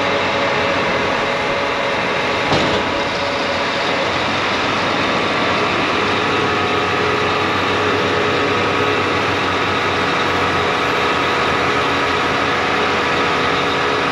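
John Deere 8R 370 tractor's engine idling up close, a steady hum, with one short knock about two and a half seconds in.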